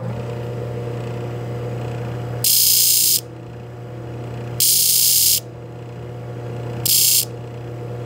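Motor-driven horizontal abrasive disc running with a steady hum. A broken twist drill bit is touched to the spinning disc three times in short, loud hissing grinding passes, each under a second, regrinding its tip.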